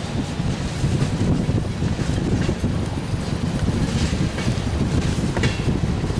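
Norfolk Southern freight train cars rolling past in a steady low rumble, with a few sharp clicks of wheels over rail joints.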